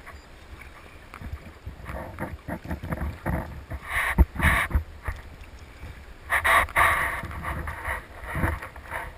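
Small waves slapping and splashing against a kayak hull, with wind buffeting the microphone. Louder splashes come about four seconds in and again about six and a half seconds in.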